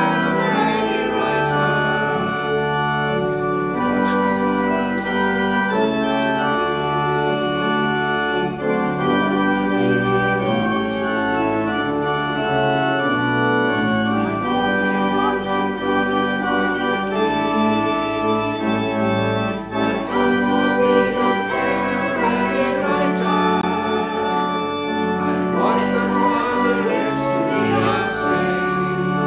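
Organ playing a worship song, sustained chords that change every second or so.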